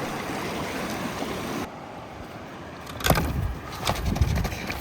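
Steady rushing outdoor noise that cuts off abruptly after about a second and a half. It is followed by quieter background, then low rumbling and a few knocks in the last second and a half.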